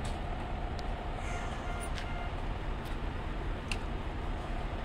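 Steady low rumble of an idling vehicle engine, with a faint steady hum and a few light clicks.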